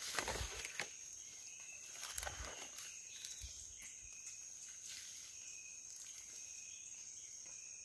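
Footsteps and rustling in dry leaf litter and fern undergrowth during the first couple of seconds, over a steady high-pitched insect drone with short chirps repeating about once a second.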